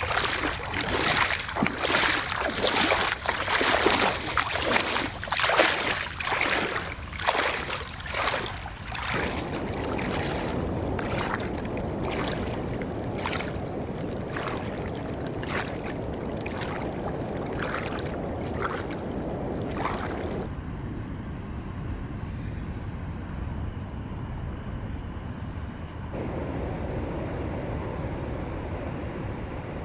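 Footsteps wading and splashing through shallow water, a step every half to three-quarters of a second, loud at first and fainter later, stopping about twenty seconds in. After that there is a steady wash of water and wind noise.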